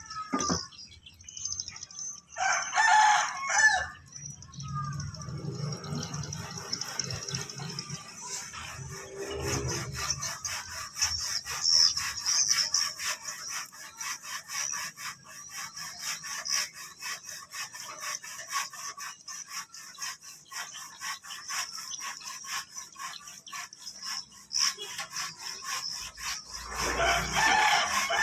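A rooster crowing twice, once about two and a half seconds in and again near the end. A steady high-pitched hiss runs throughout, and from about a third of the way in there is a run of rapid clicking.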